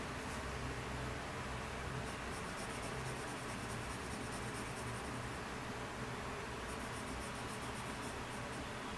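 Colored pencil scratching across sketchbook paper in rapid short shading strokes, coming in two busier spells.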